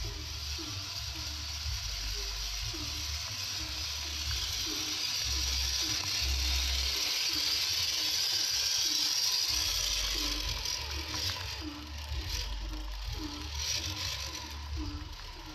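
Scale RC Jeep Wrangler Rubicon crawler's electric motor and gearbox whirring and ratcheting as it drives over wet ground and stones, louder in the middle.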